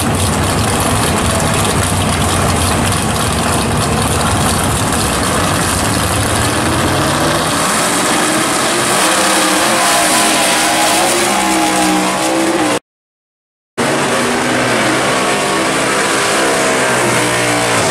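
Drag racing cars' engines running loud and lumpy on the start line and revving, the pitch climbing over several seconds. The sound breaks off completely for about a second, then another pair of drag cars rev on the line while one does a burnout.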